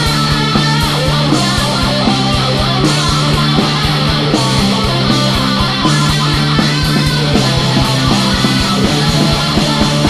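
Instrumental passage of a heavy rock song: electric guitars playing over fast, driving drums, with no vocals.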